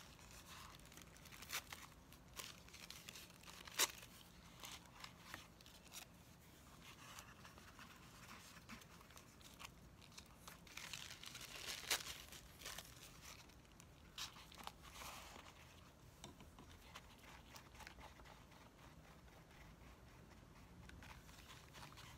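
Faint rustling and crinkling of thin tissue paper as strips are laid onto a glue-coated paper mask and pressed down by hand, with a few small sharp taps.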